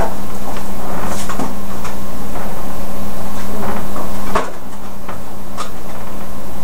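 Clicks and knocks of kitchen items being handled over a loud steady hum, with a sharper knock about four and a half seconds in.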